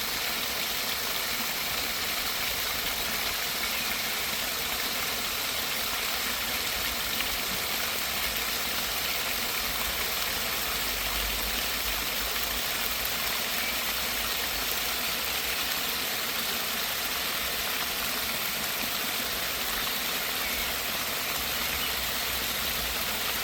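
Small forest waterfall, fresh water splashing and running in a steady, even rush, with a low rumble underneath that swells a little about halfway through.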